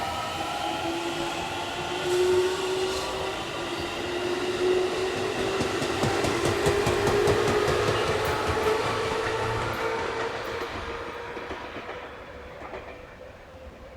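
Electric commuter train accelerating away: its traction motors whine in tones that rise slowly in pitch, and the wheels clack in a quick run over rail joints midway. The sound fades over the last few seconds as the train draws off.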